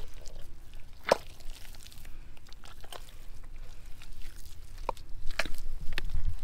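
Hands digging and pushing into thick wet mud, giving several short, separate squelching and crunching sounds, with a low rumble building near the end.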